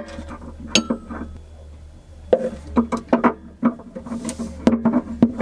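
Steel spanners clinking and knocking against the brass fittings of a butane gas regulator. There are scattered sharp metallic clicks at first, and a quick run of them from a little after two seconds in.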